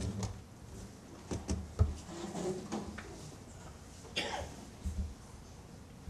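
Scattered knocks, thumps and rustling of people sitting back down in chairs at tables, with a sharp knock a little under two seconds in as the loudest.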